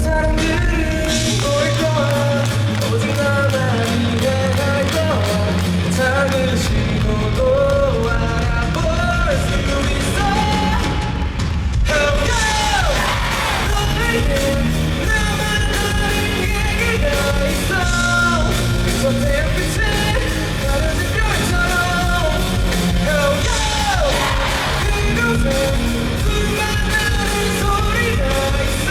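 Live rock band playing, with a lead vocalist singing and shouting over it. The low end fills in about six seconds in, and the full band hits hard about twelve seconds in.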